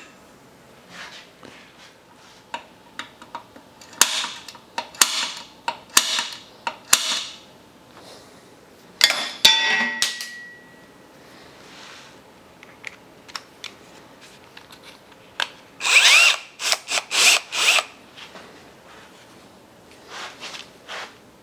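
Handheld power drill run in several short, stop-start bursts to drill mounting holes, with a motor spinning up in the loudest burst near the end, and small clinks of tools between bursts.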